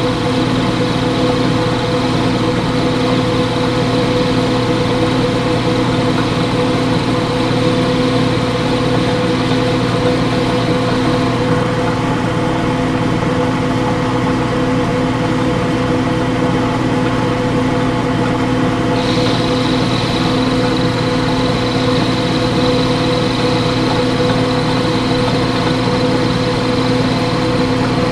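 Metal lathe running steadily, turning down the end of a rod to about 10 millimetres for threading: a constant motor hum with a faint high whine that drops away partway through and comes back abruptly later.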